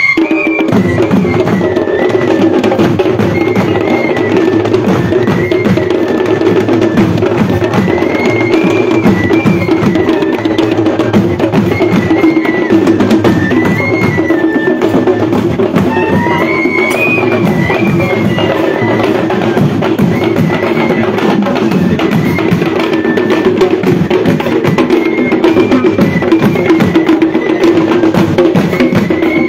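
A troupe of traditional Sri Lankan drums played together in a fast, dense rhythm, with a wind instrument playing a winding melody above the drumming.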